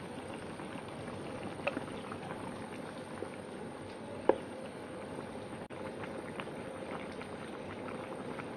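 Spiced papaya curry broth boiling in a pan: steady bubbling, with a few faint clicks and one sharp knock about four seconds in.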